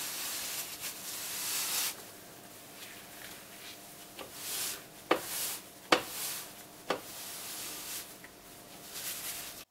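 Damp cloth rubbing back and forth over oven door glass, scrubbing off dried, hardened baking soda paste in swishing strokes. Three sharp knocks come about five, six and seven seconds in.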